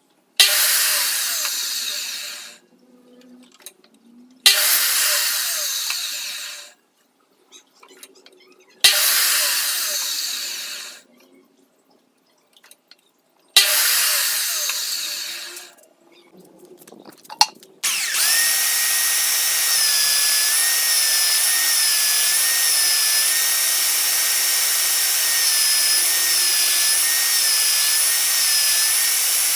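Electric power tool switched on in four short bursts, each cutting in sharply and winding down over about two seconds, then running steadily from about eighteen seconds in with a high whine that dips slightly in pitch now and then.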